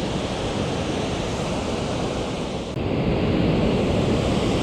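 Mountain stream water rushing steadily, with a sudden step up in loudness a little under three seconds in.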